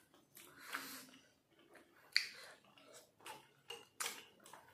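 Quiet eating sounds: soft chewing and lip smacks over rasgulla and gulab jamun, with a few scattered sharp clicks of metal forks against plates.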